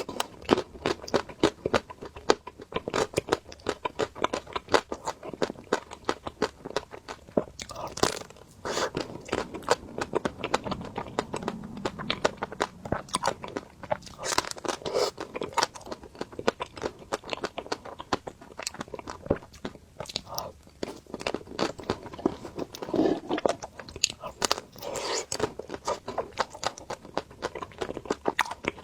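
Close-miked crunching and chewing of crispy ice cream: many sharp, irregular crackles several times a second, with louder bites now and then.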